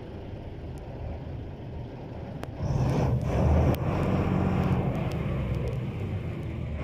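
An engine running with a steady low hum, growing clearly louder a little under three seconds in.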